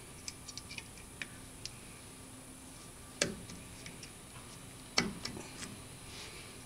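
Small metallic clicks and ticks of needle-nose pliers working the cotter pin at the spindle nut of a Ford Ranger's rotor hub, with two louder clicks about three and five seconds in.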